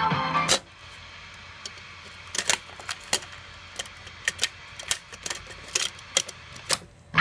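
Music from a Becker Cassette car cassette player stops with a loud click about half a second in as the tape is stopped and ejected. Then comes a scattering of sharp plastic clicks and rattles as a cassette is handled and pushed into the player's slot.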